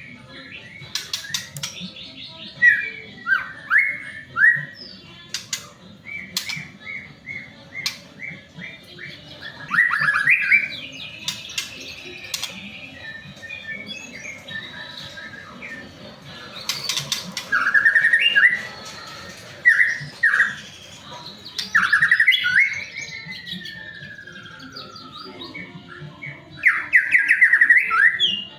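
White-rumped shama (murai batu) singing: bursts of varied whistled and chattering phrases, some sliding up or down in pitch, with sharp clicks between them and short pauses between the bursts.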